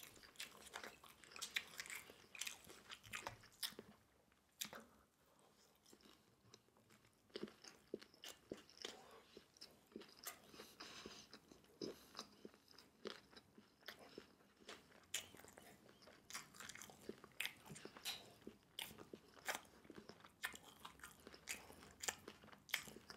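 Faint mouth sounds of a person chewing a mouthful of sweet and sour pork and rice: soft, irregular clicks and smacks, with a pause of a couple of seconds about a fifth of the way in.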